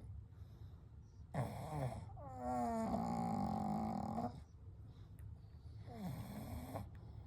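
Sleeping pug snoring: three snores over a low background rumble, a short one, then a long loud one with a clear droning pitch, then a shorter one near the end.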